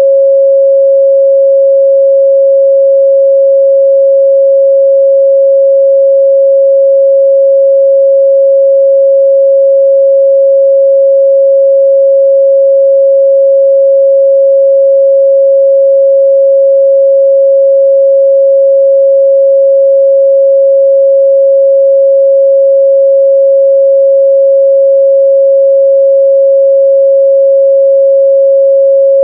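A pure 547 Hz sine-wave test tone, loud and perfectly steady at one pitch, used to check the midrange response of speakers and headphones.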